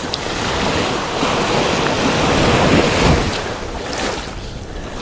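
Surf washing onto the beach with wind buffeting the microphone; the wash swells about halfway through, then eases off.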